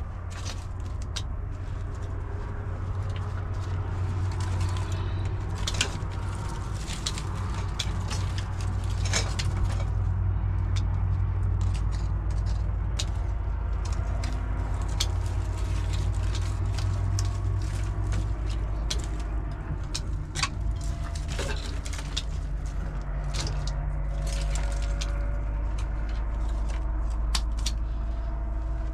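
Dry twigs snapping and crackling as a small wood fire is fed in a stone hearth, many short sharp clicks over a steady low rumble.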